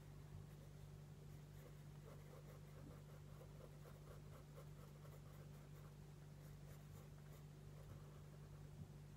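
Faint pencil strokes on sketchbook paper: quick, light back-and-forth strokes, about five a second, mostly in the first half, over a steady low hum.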